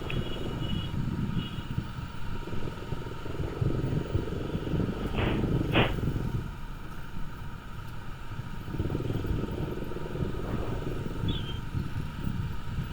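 Motorcycle running in slow, stop-and-go traffic: a steady low engine and road noise, with two sharp clicks a little over half a second apart about five seconds in.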